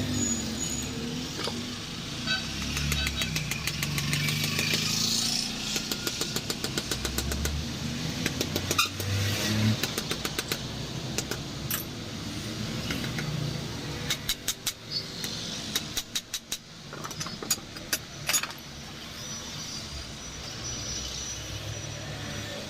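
A motor vehicle engine running, with stretches of rapid clicking and several loud sharp knocks about two-thirds of the way in.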